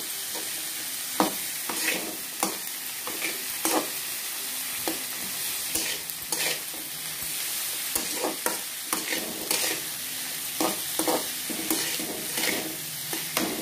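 Sliced onions and chopped capsicum sizzling in butter in a metal kadhai, with a flat metal spatula scraping the pan and stirring them in irregular strokes.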